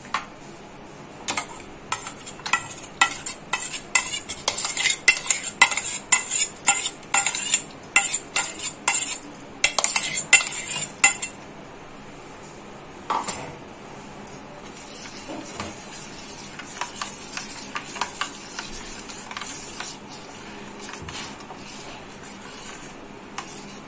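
Steel spoon scraping and clinking against a steel mixer jar, a quick run of scrapes and taps for about ten seconds as the paste is scraped out. After that comes quieter stirring of liquid in a steel tin, with occasional light clinks.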